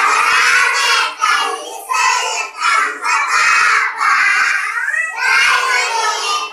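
A group of young children singing together in unison, in short phrases with brief breaks between them.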